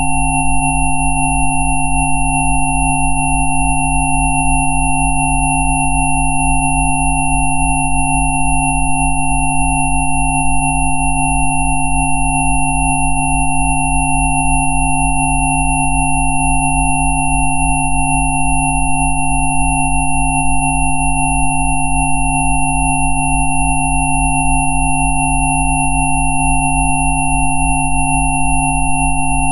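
Several electronically generated sine tones played together as Rife frequencies, held steady and unchanging: a high whistle, a mid tone and a cluster of tones lower down, over a deep hum that pulses evenly.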